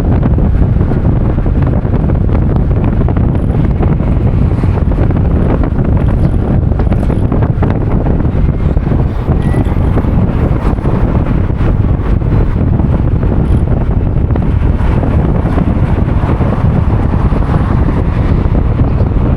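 Steady, loud wind buffeting the microphone, a constant low rumble with no break.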